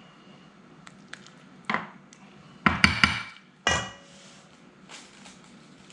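A spoon knocking and clinking against a dish, a few sharp strikes from about two to four seconds in, the loudest a quick cluster near the middle that rings briefly.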